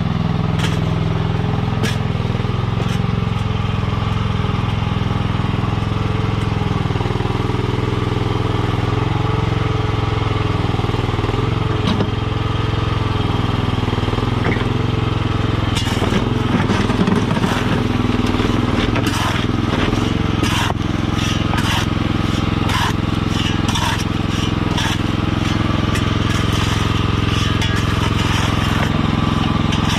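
Mini skid steer's small engine running steadily, with gravel crunching and clattering as the bucket works it through the second half.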